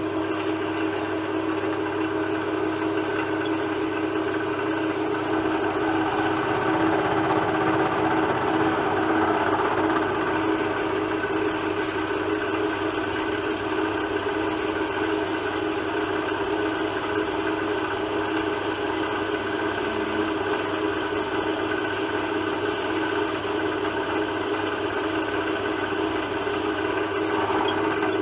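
Wood lathe motor running steadily at speed, a little louder for a few seconds about seven seconds in, while a Forstner bit held in the tailstock's Jacobs chuck is pressed into the end of the spinning wooden blank to face it flat.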